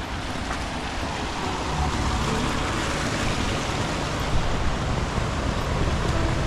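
Steady rush of a mountain stream flowing over rocks below a dam, with an uneven low rumble underneath.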